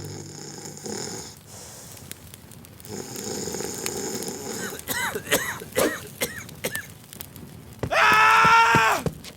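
Comic sound effects: clicks and short rising-and-falling chirps, then near the end a loud drawn-out cry about a second long that drops in pitch as it ends.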